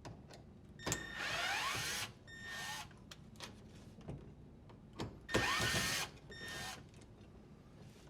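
Drill driver backing out the two screws that hold a dishwasher door latch: two runs of a motor whine that rises in pitch as it spins up, each followed by a short second burst.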